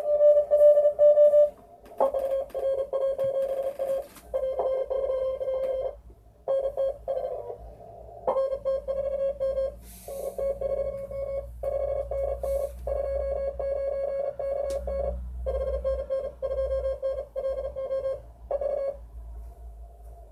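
Morse code (CW) signals on the 40-metre band from a homemade shortwave transceiver's built-in loudspeaker: a beeping tone near 600 Hz keyed rapidly on and off. Its pitch drops slightly about two seconds in and it pauses briefly now and then, with a faint low hum beneath.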